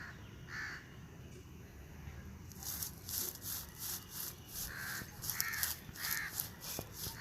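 Crows cawing in a run of short calls, with steady rhythmic rustling, about three strokes a second, that starts about two and a half seconds in.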